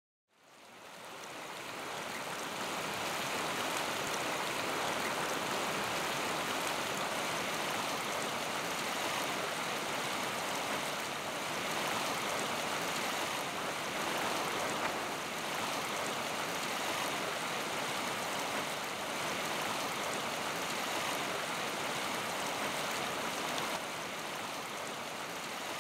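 Steady rush of flowing river water, fading in over the first couple of seconds.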